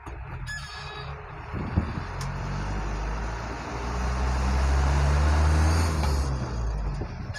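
Delivery vehicle's engine running while driving, pulling harder and louder to a peak about five seconds in, then easing off. There is a single knock about two seconds in.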